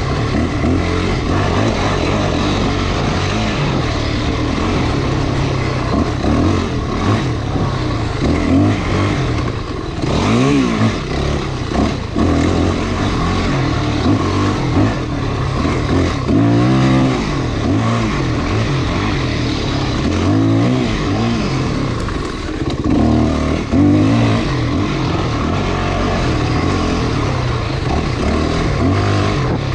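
Dirt bike engine running under way on a trail. Its pitch rises and falls several times as the throttle is opened and closed, over continuous rough, rattly riding noise.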